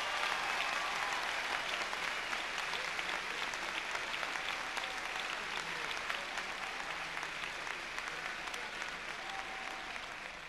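Large audience applauding, a dense steady clapping that slowly dies down.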